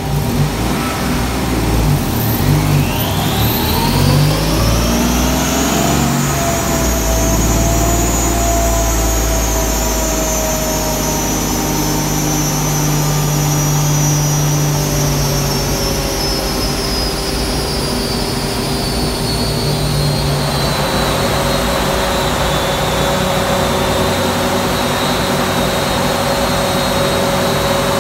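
Modified Ford engine under load on a chassis dynamometer during a power run: it climbs in pitch for the first six seconds or so, then a high whine slowly falls as it winds down, with a rush of noise coming in at about twenty seconds.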